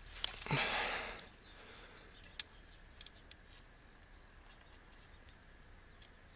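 Handling noise from a three-section Higashi Koi feeder rod being put together: a short rustle near the start, then one sharp click and a few fainter clicks.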